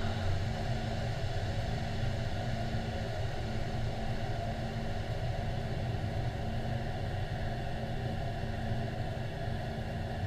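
Steady low rumbling drone with a faint steady hum, like engine noise heard from a vehicle or aircraft, running evenly with no sudden blasts.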